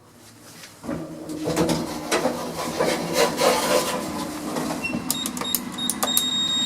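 Lift running: a mechanical rumble with irregular rattling and clicking as the car travels. A thin high whine joins about five seconds in.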